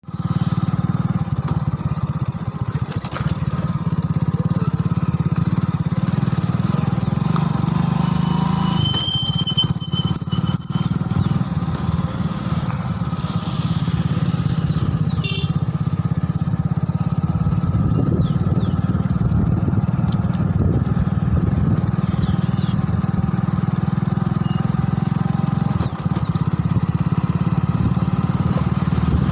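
Engine of a moving road vehicle running steadily, with a constant low rumble, likely wind on the microphone.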